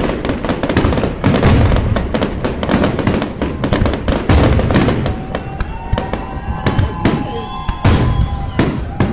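Fireworks display: aerial shells bursting in a rapid, continuous run of sharp bangs and crackles.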